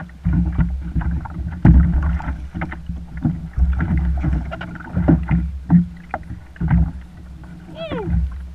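A big striped bass thrashing and splashing at the side of a plastic kayak as it is grabbed and hauled aboard by hand, with repeated knocks and thumps against the hull over a steady low rumble.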